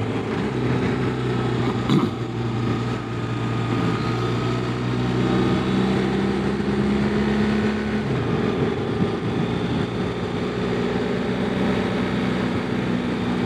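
Motorcycle engine running steadily at road speed, heard from the saddle with wind and road noise; the engine note shifts a little a couple of times.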